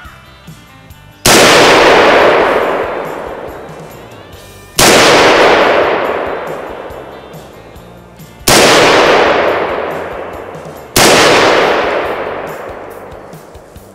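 Four shots from a DPMS .308 (7.62 mm) rifle, about a second in, then roughly three and a half, three and a half and two and a half seconds apart. Each report is followed by a long echo that fades over two to three seconds.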